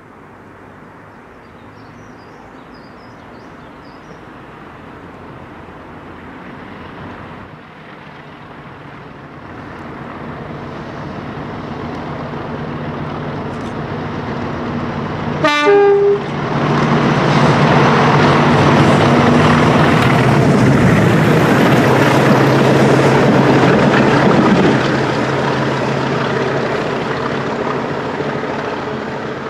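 A convoy of BR diesel locomotives, a Class 40 leading two Class 50s with a Class 45 on the rear, approaches with its engines growing louder. A horn sounds briefly about halfway through, then the locomotives pass loudly and fade away near the end.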